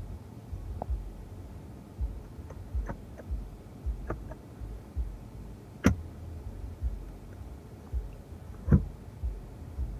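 Clicks and knocks from the plastic rear centre armrest and cup holders of a Mercedes C300 as they are handled and the armrest is pushed up into the seat back. Two sharper clicks come about six and nine seconds in, over soft low thumps.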